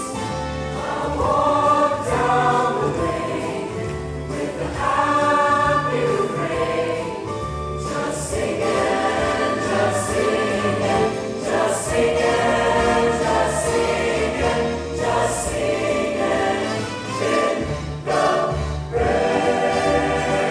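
A choir singing in harmony over sustained low bass notes of an accompaniment. A few short, high hissing accents come about every two seconds through the middle stretch.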